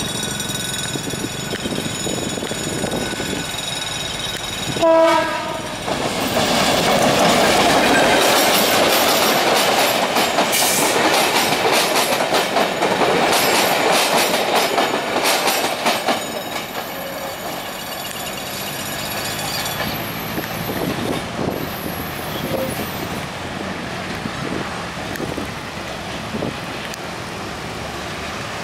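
A General Motors GR-12 diesel locomotive approaches with its engine running and gives one short horn blast about five seconds in. It then passes close with its passenger coaches, the wheels clattering over the rail joints. The sound fades as the train moves away.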